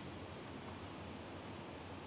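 Faint steady room tone: a low, even hiss with no distinct events.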